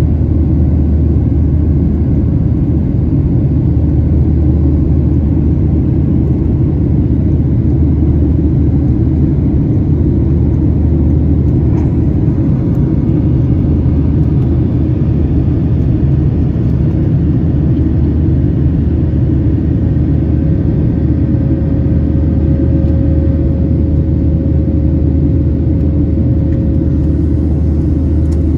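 Cabin noise of a Boeing 737-800 climbing after takeoff: a steady, loud rumble of its CFM56-7B turbofan engines and rushing air, heard from a window seat over the wing. A faint steady hum grows a little stronger about two-thirds of the way through.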